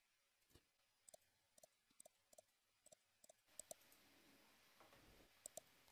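Faint clicks of a computer mouse and keyboard: about a dozen short clicks, several in quick pairs, mostly in the first four seconds, with a faint hiss later on.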